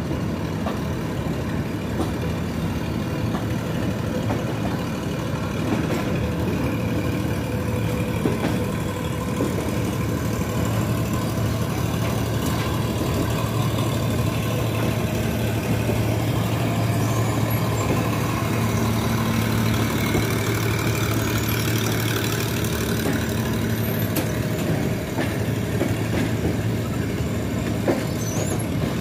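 Running noise of a passenger train heard from aboard a moving coach: a steady rumble of wheels on the rails with a low hum and a few faint clicks.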